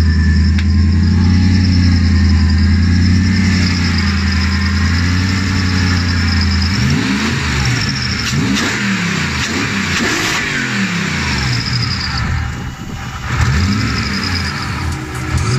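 BMW M60-based 4.4-litre hybrid V8 (M60B44) running steadily, then revved by hand at the throttle several times in quick blips, the pitch rising and falling, before dropping back to a steady idle near the end.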